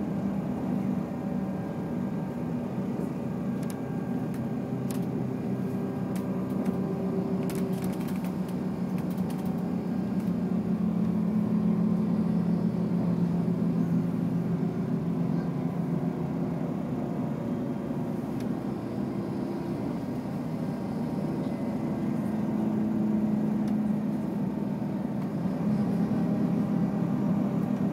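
Cabin sound of a Siemens Desiro diesel multiple-unit train running at speed: a steady engine drone over wheel-on-rail rumble, the engine note swelling a little at times.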